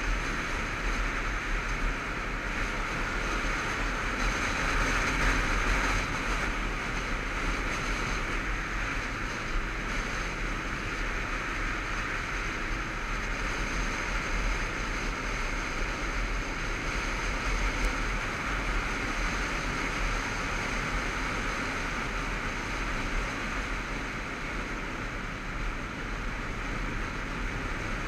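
Wind rushing over the microphone on a moving motorcycle, a steady roar with the bike's engine running underneath as it cruises along.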